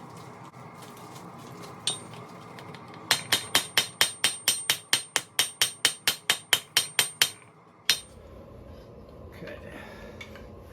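Hand hammer blows on a hot steel bar on an anvil: a single blow, then a fast even run of about twenty ringing blows at roughly five a second, and one last blow after a short pause.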